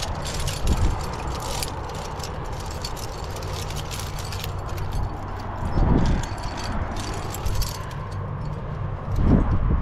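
Metal climbing gear on a harness rack (carabiners and cams) jingling and clinking with the climber's movements, over a steady low rumble, with two louder dull bumps about halfway through and near the end.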